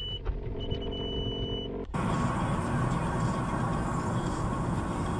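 Inside a car, a high steady electronic beep sounds twice over a low idling engine hum. About two seconds in, it cuts to the steady rushing road and engine noise of a car driving along.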